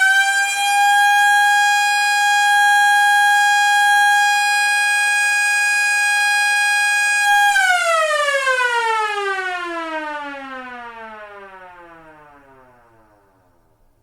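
Old-style police siren finishing its rise to top pitch, holding one steady wail for about seven seconds, then winding down slowly, falling in pitch and fading out over the last six seconds.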